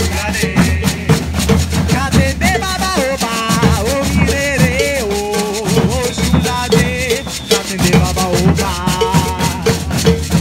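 Maracatu group playing: rope-tuned alfaia bass drums and a snare drum keeping a steady driving beat, with a shaker rattling, while voices sing a melody over the drums.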